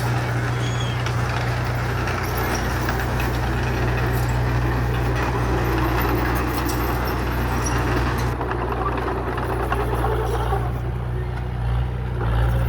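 Diesel engine of heavy earthmoving machinery running steadily, a constant low drone with a wash of mechanical noise over it.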